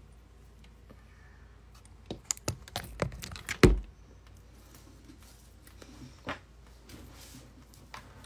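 Handling noise from a phone being picked up and touched: a quick run of sharp clicks and taps about two seconds in, ending in a louder knock, then a few scattered clicks later.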